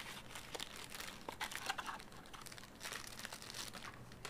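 Plastic packaging crinkling and rustling with irregular small clicks and taps, as earphone parts are handled and unpacked.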